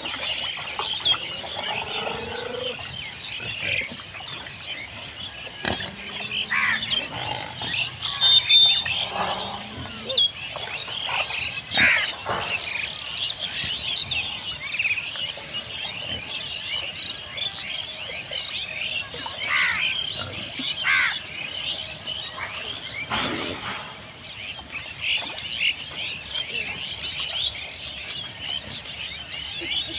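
Many small birds chirping without pause, with a few louder, lower animal calls and grunts standing out now and then, the loudest about eight seconds in.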